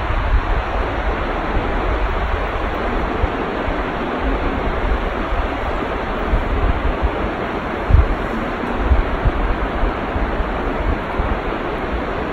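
A mountain river rushing steadily, with wind buffeting the microphone in low rumbles and a sharper bump about eight seconds in.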